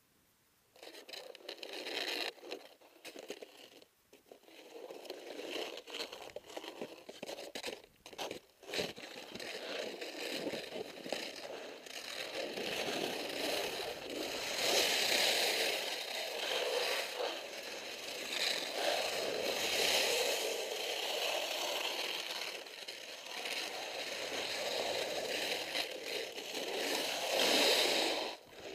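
Skis scraping over firm snow on a steep descent, the hiss swelling and fading again and again as the skier turns, starting about a second in.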